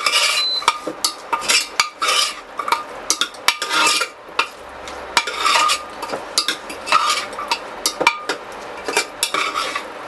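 A ladle stirring chopped vegetables in a masala inside a metal pressure cooker, with irregular scraping strokes and clinks against the pot's side.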